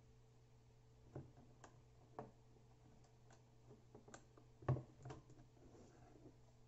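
A few faint, separate clicks and taps of hands handling a plastic trail camera housing, the loudest about two-thirds of the way in, over a low steady hum.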